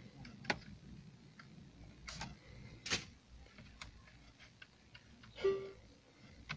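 Buttons being pressed on a Volkswagen RCD 500 multi-CD car radio: a string of sharp clicks, the loudest about three seconds in. A short tone sounds near the end.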